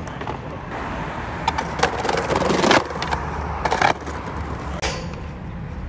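Skateboard wheels rolling over brick paving, with several sharp clacks of the board hitting the ground. The loudest clack comes about three seconds in, at the end of a scrape that builds for a second.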